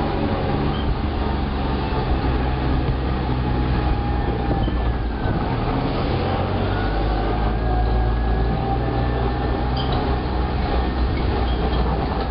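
Cushman utility vehicle's small engine running steadily under way, with a thin whine above the engine note.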